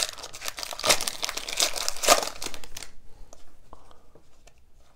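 Shiny foil wrapper of an Upper Deck hockey card pack being torn open and crinkled, for about three seconds. Then only faint, soft ticks as the cards are leafed through.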